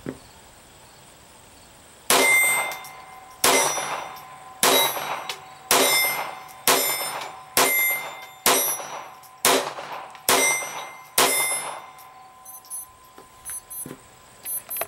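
Hi-Standard Victor semi-automatic .22 LR target pistol fired ten times at a steady pace, about one shot a second, each crack leaving a short ring. A few faint clicks follow after the last shot.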